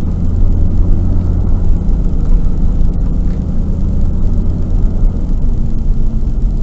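Vehicle running: a loud, steady low rumble of engine and road noise.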